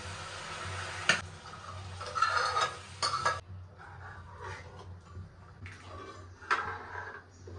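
Food sizzling in a frying pan with a few sharp clinks of a utensil against the pan; the sizzle cuts off suddenly about three and a half seconds in, followed by quieter scattered kitchen knocks and scrapes.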